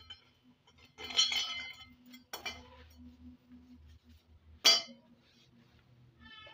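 Thin sheet-metal ring clinking three times, each clink with a brief metallic ring; the sharpest and loudest clink comes about two-thirds of the way through.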